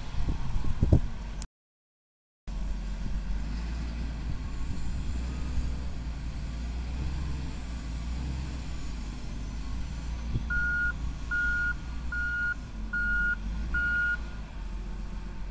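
Hitachi ZW220 wheel loader's diesel engine running steadily as it works into a coal pile, with a second-long dropout in the sound near the start. Later its reversing alarm beeps five times, evenly spaced, as the loader backs out with a full bucket.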